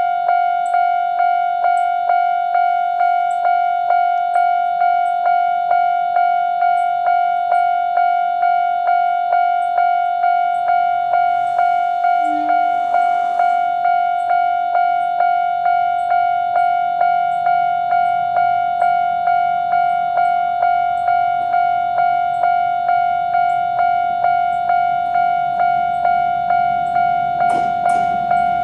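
Japanese level-crossing electronic warning bell, ringing its single tone over and over at an even rate of nearly two strikes a second, the normal alarm sounding while the crossing is closed for an approaching train.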